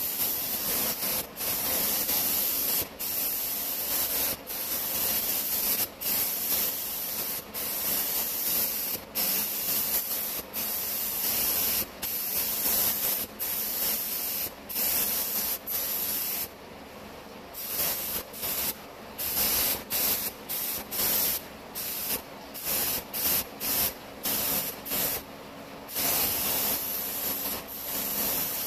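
Compressed-air paint spray gun hissing as it coats a jet ski hull, trigger pulled in repeated passes of about a second with brief pauses, the bursts getting shorter and quicker near the end. A faint steady hum runs underneath.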